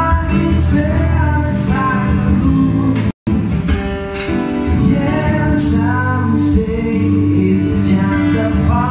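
Background music: a song with singing over guitar, cut by a brief dropout to silence about three seconds in.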